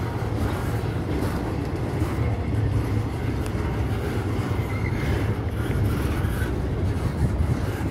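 Freight cars of a mixed freight train, double-stack container well cars and then a boxcar, rolling past close by: a steady low rumble of steel wheels on the rails with a few faint clicks.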